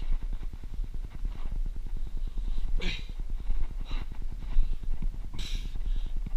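Low, irregular rumbling of wind buffeting the microphone, with a few short, heavy breaths from a climber labouring on steep rock, about three seconds apart.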